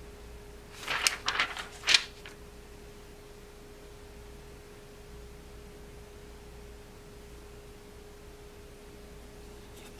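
A screen protector film being handled and pressed onto an iPad: a quick cluster of crinkles and taps about a second in, the last one the loudest. A faint steady tone runs underneath.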